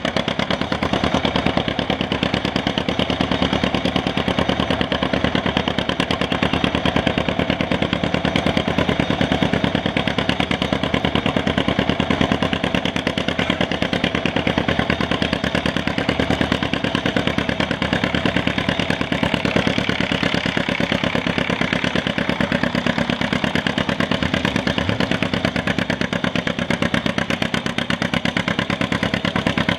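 1938 John Deere A's two-cylinder engine running steadily, its exhaust beating in a rapid, even pulse.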